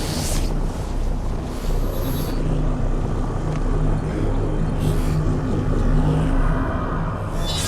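Sci-fi film sound effect: a steady low rumble with a wavering, engine-like hum, crossed by brief airy whooshes about two seconds in, around five seconds and near the end.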